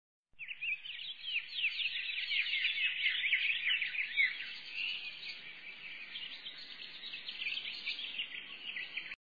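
Dense chatter of many small birds, short chirps and quick falling notes overlapping continuously; it starts abruptly a fraction of a second in and cuts off just before the end.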